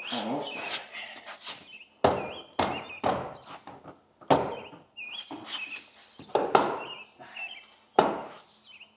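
Repeated heavy thuds of a tire being kicked at its corner, about seven blows at uneven intervals: the wheel rim is stuck on the hub and is being knocked loose.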